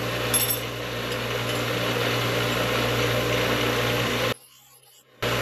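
Bench grinder running steadily with its worn abrasive wheel grinding the edges of small cut steel pieces. The sound cuts out for about a second near the end, then comes back the same.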